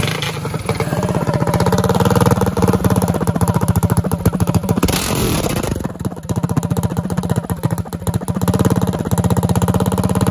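Predator 212cc single-cylinder engine in a stage 4 Hemi build, running through an open trumpet exhaust, a loud rapid firing beat. The sound drops away briefly about six seconds in, then comes back up.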